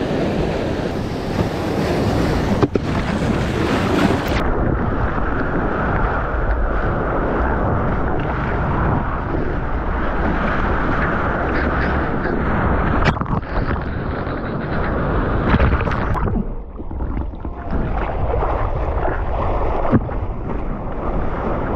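Rushing surf and spray with wind buffeting a GoPro's microphone while surfing. The sound turns duller about four seconds in, and briefly again near the end.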